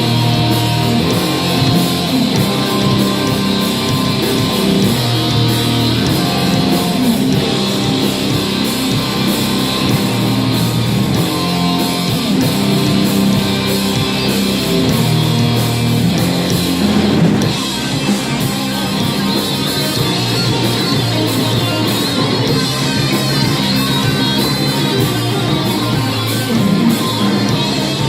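Live heavy metal band playing: electric guitars over bass and a drum kit, loud and continuous.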